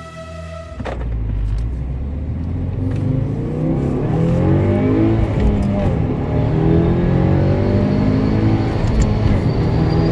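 2016 Subaru WRX's turbocharged flat-four engine revving, its pitch rising and falling several times, starting about a second in.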